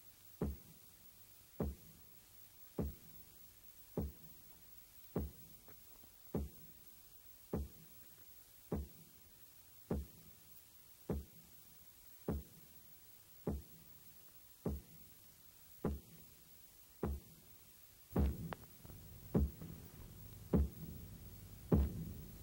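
Single low thumps repeating evenly about every second and a quarter, a slow pulse on the soundtrack. About 18 seconds in, a low hum rises beneath them and the thumps grow louder.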